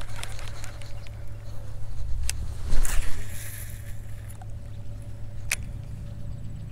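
Wind rumbling on the microphone under handling sounds from a cheap baitcasting reel as the lure is cast and retrieved. There is a louder burst about three seconds in, and two sharp clicks.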